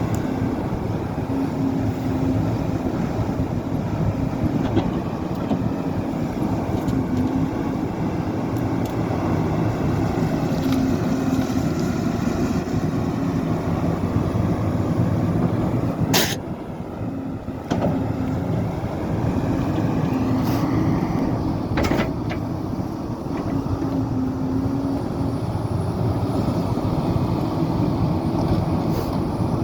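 Excavator's diesel engine running steadily, with a sharp click about halfway through and the sound dropping back for a second or so, and another knock a few seconds later.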